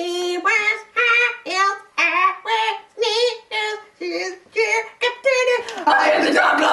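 Young women singing without accompaniment: a run of short, wavering sung notes, about two a second, then a second voice joins in and it grows denser and louder near the end.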